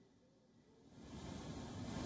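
Near silence, then about a second in a steady rushing noise fades in and grows: the roar of a river in flood.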